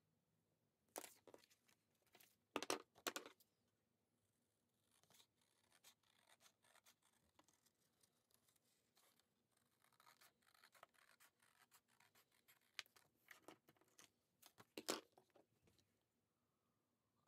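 Faint paper handling: short rustles and scrapes of paper sliding and being set down on a wooden desk, loudest about three seconds in and again near the end.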